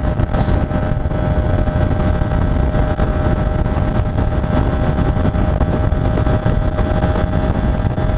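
Hyosung GT125's 125 cc V-twin engine running steadily at high revs, flat out in top gear with the speed still climbing, over heavy wind noise on the microphone.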